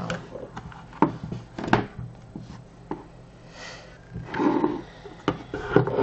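Handling sounds of an electric kettle's black plastic power base and cord on a wooden tabletop: scattered clicks and knocks, with some rubbing and scraping in the second half.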